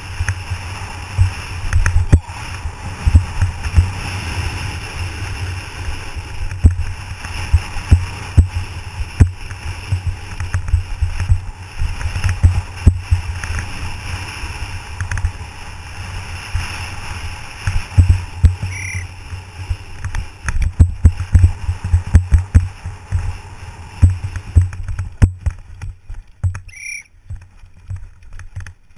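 Downhill mountain bike running fast over a rough dirt track, heard through an action camera: a steady rush of wind with constant thumps and rattles as the bike hits bumps. The rush and thumps thin out briefly near the end.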